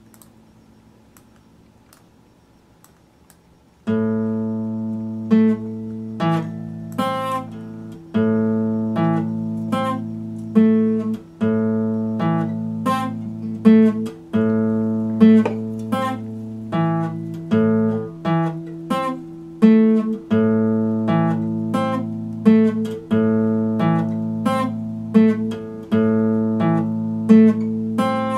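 Epiphone acoustic guitar played fingerstyle: a slow arpeggio of single plucked notes over ringing bass notes. The playing starts about four seconds in, after a few quiet seconds.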